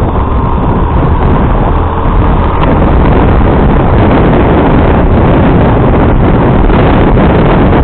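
Motorcycle under way: heavy wind buffeting on the microphone over the running engine, getting louder about two and a half seconds in.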